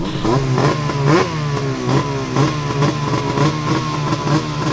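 A small vehicle engine running at a fast idle with quick throttle blips, roughly two a second, its pitch jumping up briefly and sagging back between them.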